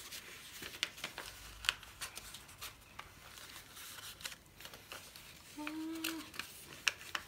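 A4 paper being folded and creased by hand: irregular crisp rustles and crackles of the sheet.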